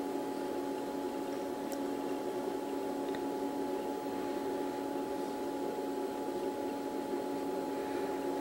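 Steady electrical or mechanical hum made of several unchanging tones over a faint hiss, with two faint light ticks in the first few seconds.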